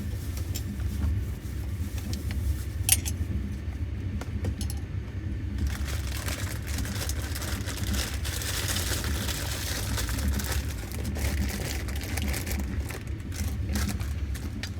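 Passenger train carriage running, with a steady low rumble and scattered clinks and rattles; a louder hiss comes in about six seconds in.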